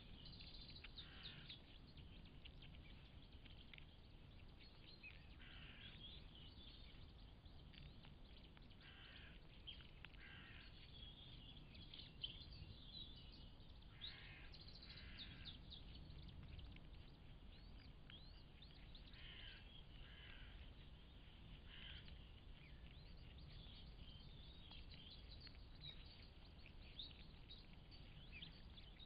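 Faint outdoor ambience: small birds chirping in short, quick calls that come in scattered clusters, over a steady low rumble and hiss.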